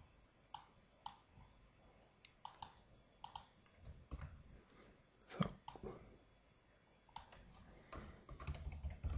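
Faint, scattered single keystrokes and clicks on a computer keyboard and mouse, then a quicker run of keystrokes from about seven seconds in.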